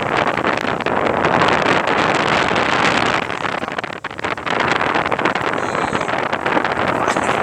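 Strong wind buffeting the microphone: a loud, steady rushing noise that dips briefly about four seconds in.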